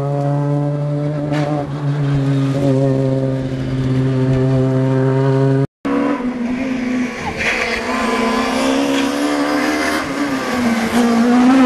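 Suzuki Swift S1600 rally car's 1.6-litre four-cylinder engine at high revs, holding a steady note as the car passes close and pulls away. After a brief break the car is heard again approaching, its engine note rising and getting louder near the end.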